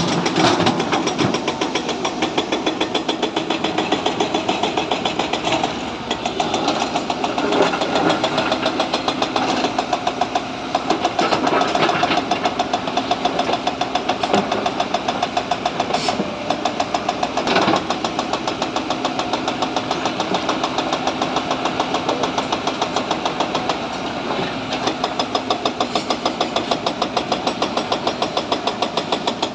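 Sany SY140 excavator's diesel engine running steadily with an even, fast pulsing clatter as the machine works. Two brief sharp knocks stand out about halfway through.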